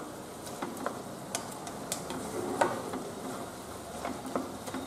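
Spatula stirring cooked spinach and vegetables in a non-stick kadai, giving light, irregular clicks and scrapes against the pan, roughly two a second.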